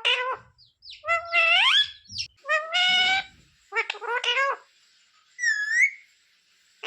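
Pet Indian ringneck parrot vocalising in short, pitched, speech-like calls, several in quick succession, then a single dipping whistle about five seconds in.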